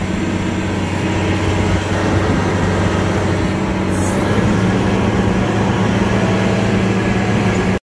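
Diesel engine of a Caterpillar articulated dump truck running steadily under way, heard from inside the cab as a constant low drone with rattling noise over it. It cuts off abruptly near the end.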